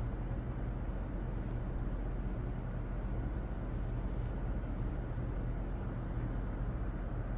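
A steady low rumble with a hum beneath it, the unchanging background noise of the recording. About four seconds in there is a faint soft swish as the hardcover book is closed and laid flat.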